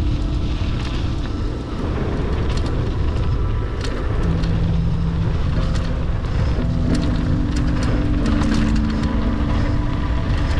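Heavy wind noise rushing over the microphone, as on a fast ski or snowboard descent, with short scrapes over it and a few held music notes faintly underneath.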